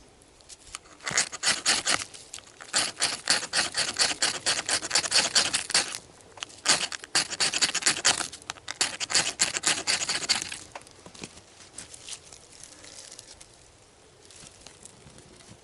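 Dry birch bark being scraped and torn: rapid scratchy strokes in several bursts for about nine seconds, then stopping.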